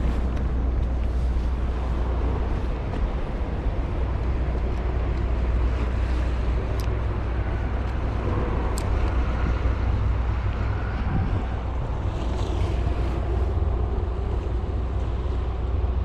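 Wind buffeting the microphone outdoors: a steady low rumble with a hiss above it.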